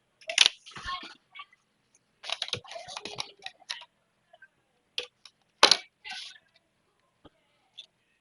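Scattered sharp clicks and short scraping rustles of small hand tools being handled at an electronics workbench, coming in three clusters with quiet gaps between.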